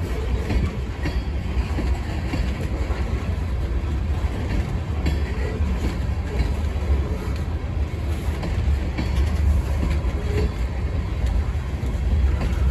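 Covered hopper freight cars of a CSX train rolling past: a steady low rumble of steel wheels on rail, with faint clicking.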